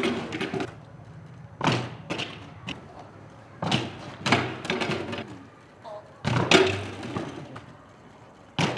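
BMX bike and rider slamming onto concrete on crashed and landed attempts: hard thuds, about five of them, roughly two seconds apart.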